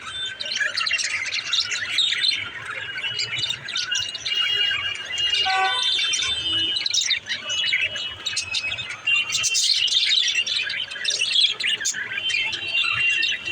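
Pet budgerigars chattering, with rapid chirps and warbles running on without a break. About six seconds in there is a brief call that falls in pitch.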